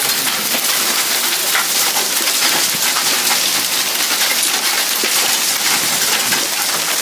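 Hailstorm: hailstones coming down hard, a dense steady patter of many small impacts with scattered sharper ticks.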